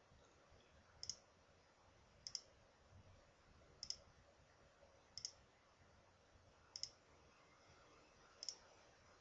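Faint computer mouse clicks, six in all, spaced a second or so apart, each a quick double tick, stepping through moves on an on-screen chess board.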